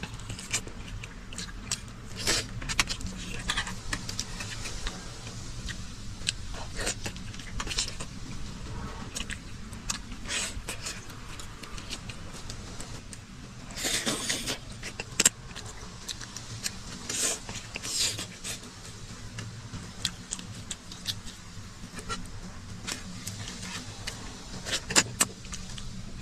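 Scattered light clinks and clicks of utensils against a bowl as someone eats, over a steady low rumble. About fourteen seconds in there is a brief louder rush of noise.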